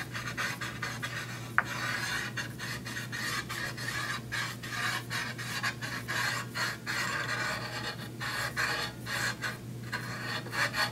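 A rust eraser scrubbed back and forth along the steel blade of a guillotine paper cutter, about two to three rubbing strokes a second, to scrub off corrosion. A single sharp click comes about a second and a half in.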